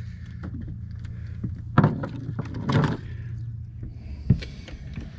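Steady low hum of a small fishing boat's engine running. A few sharp knocks and clatters, about two seconds in, near three seconds and past four seconds, come from gear being handled on board.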